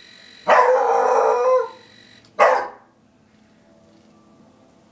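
A dog-like howl about a second long, followed by a shorter, fading yelp about two seconds in.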